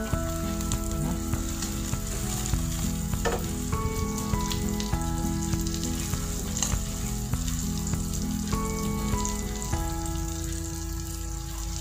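Egg omelette frying in oil in a frying pan: a steady crackling sizzle, with a few sharp scrapes or taps of a wooden spatula in the pan.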